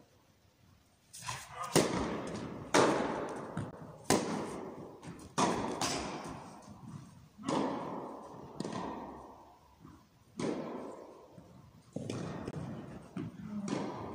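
Tennis rally in an echoing indoor hall: a series of sharp racket-on-ball strikes, a little over a second apart, each followed by a short echo.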